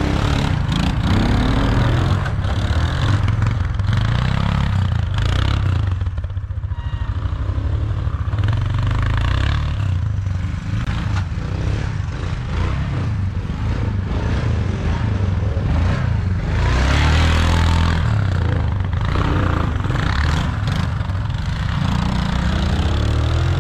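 Small off-road engine of an ATV or three-wheeler running under throttle, its pitch and level rising and falling as it is ridden.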